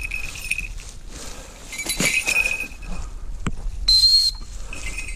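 Red-tailed hawk struggling with a freshly caught squirrel in leaves and grass: scuffling and a few sharp knocks, a steady high ringing that comes and goes, and one short high whistle about four seconds in.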